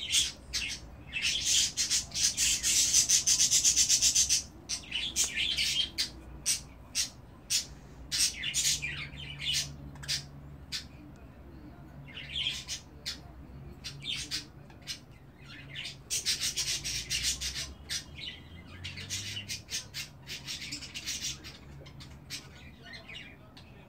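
Young budgerigars chattering in raspy, high-pitched bursts of chirps, each lasting a second or more, with many short clicks between them.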